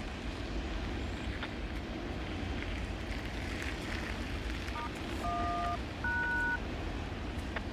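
Freight train rolling by with a steady low rumble. About five seconds in, three short two-tone touch-tone beeps (DTMF) sound from a railway radio scanner, one after another.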